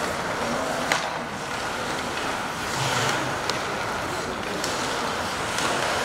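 Ice hockey game in play in an arena: a steady hiss of skates on ice and crowd, with sharp clicks of sticks and puck, the loudest about a second in.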